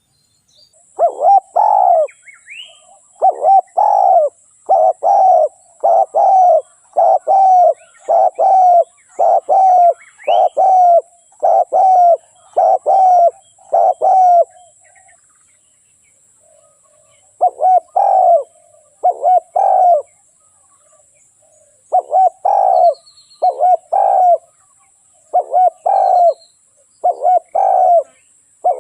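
Spotted dove cooing: a long run of mid-pitched coo notes about one a second, a short pause a little past halfway, then further phrases. Faint high chirps of small birds sound alongside.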